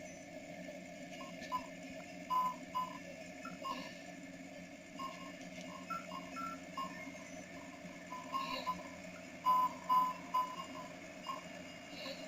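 Ice cream truck chime playing a simple electronic melody of short beeping notes, thin and faint, over a steady low hum.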